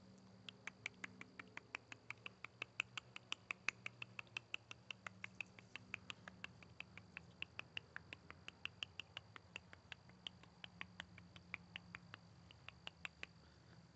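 Squirrel calling: a long, quiet run of short, sharp chirps at about four or five a second, stopping near the end.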